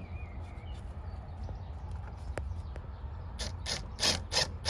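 A quiet, steady low rumble, then about a second before the end a quick run of four short crunching knocks, about three a second, growing louder.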